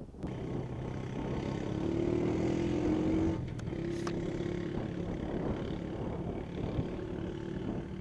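Quad bike (ATV) engine running steadily as it is ridden away up a farm track, its pitch swelling briefly a couple of seconds in. Two short clicks come about three and a half and four seconds in.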